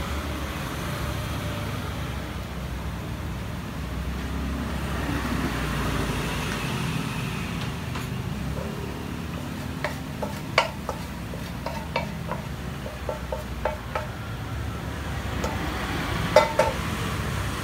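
Light metal clinks and taps of a spatula against a pan and containers as a jianbing crepe is sauced and filled, a run of them in the second half and the loudest, briefly ringing clink near the end, over a steady low background rumble.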